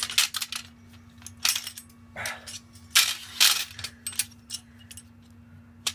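Steel server rack rail and cable management arm knocking and clinking together as they are handled and slotted into each other: a run of sharp metallic clicks and knocks, loudest about three seconds in.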